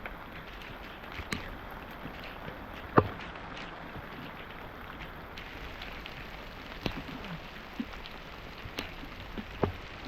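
Heavy rain falling steadily, with single drops ticking sharply close by; one louder tick comes about three seconds in.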